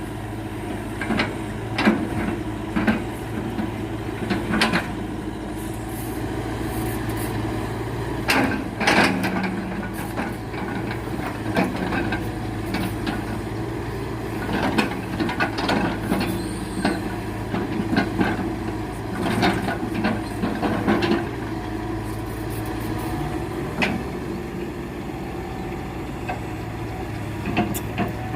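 Excavator diesel engine running steadily while it handles rubberwood logs, with repeated sharp knocks and clunks of logs being moved at irregular intervals.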